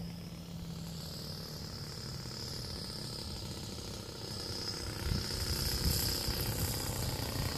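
Motor of a radio-control Piper J-3 Cub float plane buzzing steadily as the model flies low over the water, getting louder as it comes close about five seconds in.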